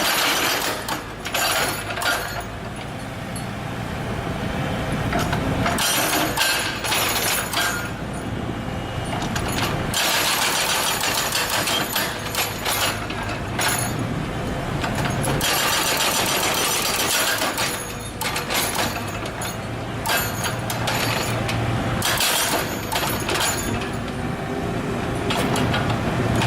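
Excavator with a hydraulic breaker hammer, the diesel engine running steadily while the breaker hammers in repeated bouts of a second or two each, rattling and clattering over the engine.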